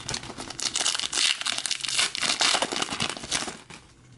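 Foil trading-card pack wrapper crinkling and tearing as it is ripped open by hand, a dense run of crackles that dies down near the end.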